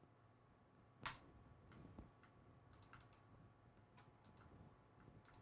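Faint computer mouse clicks over quiet room tone: a few scattered single and double clicks, the loudest about a second in.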